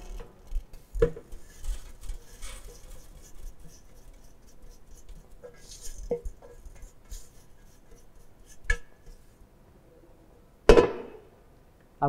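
Stainless steel test sieves and a metal pan clinking and scraping against each other as dry fine aggregate is tipped into the top of a stacked sieve set. The light clinks are scattered, with a sharper one about nine seconds in and a louder ringing knock nearly eleven seconds in.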